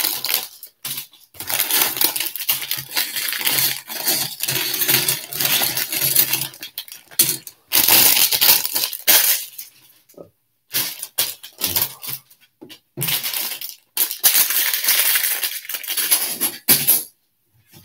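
Clear plastic bags of LEGO bricks crinkling and rustling as they are handled and opened, with loose plastic bricks clinking and rattling as they are tipped out onto the table.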